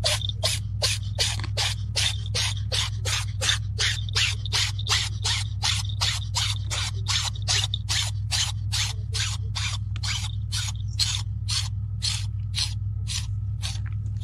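Rhythmic scraping strokes, about three a second, spacing out a little near the end, over a steady low hum.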